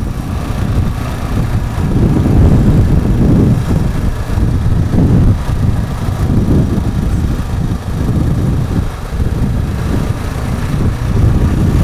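KTM 690 Enduro motorcycle riding slowly through shallow floodwater on a paved road, its single-cylinder engine running under a loud, uneven low rumble that grows louder about two seconds in.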